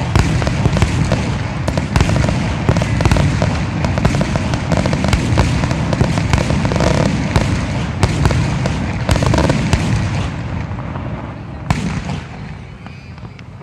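Fireworks display: a dense, rapid barrage of bursting shells and cracks over a heavy low rumble, which thins out and fades over the last few seconds, broken by one more sharp bang near the end.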